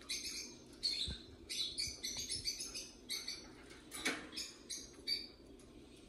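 Small pet parrots chirping in a rapid run of short, high-pitched calls that stops a little after five seconds in.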